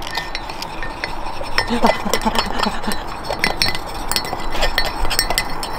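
A metal spoon and a clear container clinking against a ceramic mug as the volcano kit's reagent is poured in and stirred, a run of quick, irregular light ticks.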